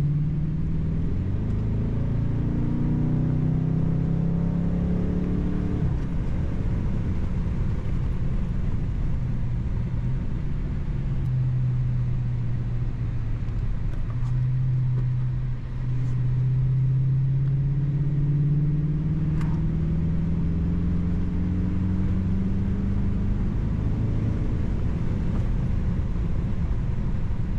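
Dodge Charger R/T's V8 engine heard from inside the cabin while driving, its pitch climbing as the car accelerates, dropping at an upshift about six seconds in, then rising slowly again in the second half, over steady tyre and road rumble.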